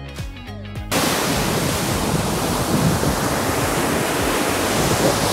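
Background music for the first second, then ocean surf: waves breaking and washing up the sand, a loud, steady rush that begins suddenly about a second in.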